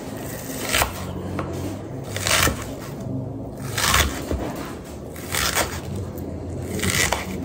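Kitchen knife cutting through a red onion: a series of separate crunching cuts, irregularly spaced about one every second or so.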